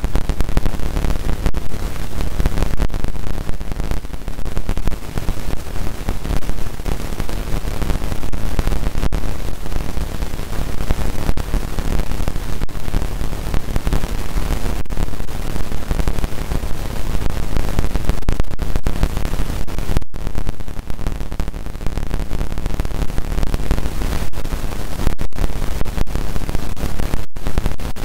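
Loud, steady static-like hiss over the sound of a badminton hall, with a few brief dropouts in the second half.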